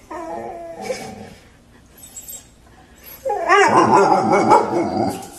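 A dog whining and yipping in two bouts of wavering calls, a short one at the start and a louder, longer one from about three seconds in.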